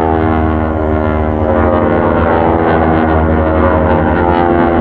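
Radial engines and propellers of a formation of North American T-6 Texan aerobatic planes, droning steadily and loudly as the planes climb.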